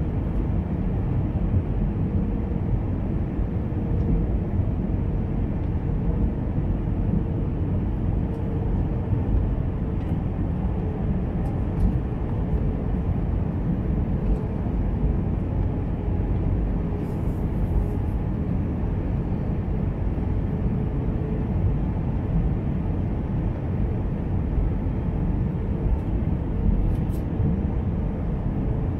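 Airbus A320-214 cabin noise heard from a window seat over the wing while descending on approach with flaps extended: a steady, deep rush of engine and airflow noise with a faint steady hum. A few faint clicks come through now and then.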